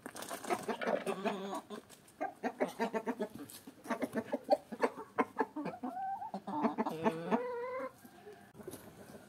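Flock of domestic hens and a rooster clucking busily as they feed on scattered greens, in quick short calls, with a longer drawn-out call about two-thirds of the way through.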